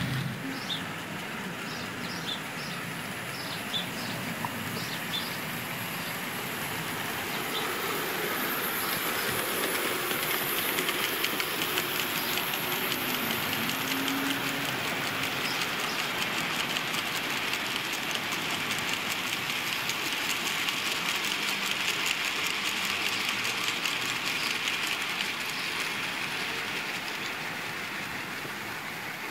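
OO gauge model train, a steam locomotive hauling mineral wagons, running along garden track: a steady rolling rumble and rapid clicking of small wheels on the rails, growing louder in the middle as it passes close and fading again near the end.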